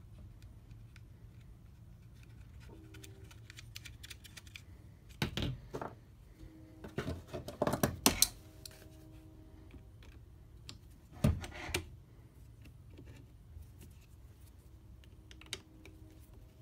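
Hand reassembly of a cheap plastic ratcheting bar clamp handle: scattered clicks and clatters of hard plastic parts and a screwdriver working a bolt into the handle. The louder clatters come about five seconds in, from seven to eight seconds, and about eleven seconds in.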